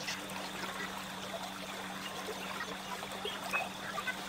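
Steady hiss with scattered faint crackles from a portable gas stove heating a small stainless cup of used cooking oil while a PVC pipe is held dipped in the hot oil, over a low steady hum.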